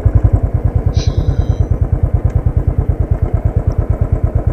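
Royal Enfield Continental GT's single-cylinder engine running at idle revs with a steady thump, about ten beats a second, as the bike rolls to a stop. A brief high squeak about a second in.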